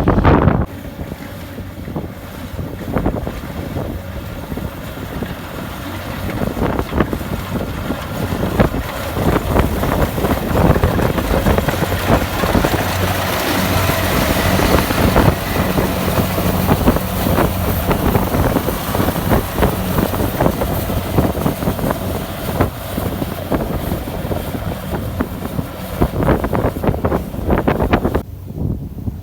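Kubota DC-70 Plus combine harvester running steadily under load while harvesting rice: a diesel engine hum under the dense noise of its working machinery. The higher noise thins out about a second before the end.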